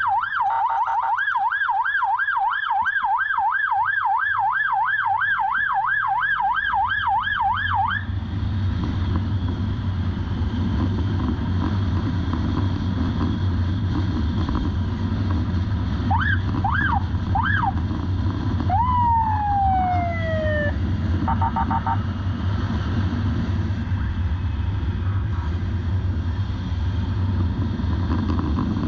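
Police motorcycle siren in a fast yelp, rising and falling about three times a second, cutting off about eight seconds in. Then the motorcycle's engine and wind noise while riding, broken about two-thirds through by a few short siren chirps: two quick sweeps, a falling whoop and a brief warble.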